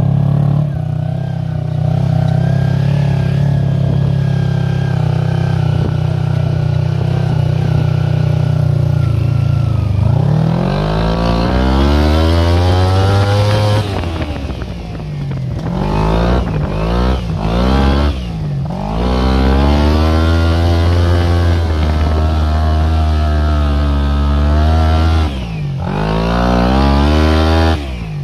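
Small engine of a homemade go-kart built on a Power Wheels ride-on, running at a steady speed for about ten seconds, then revving up and down several times. It holds a high speed for several seconds, with brief drops in between and another drop at the end.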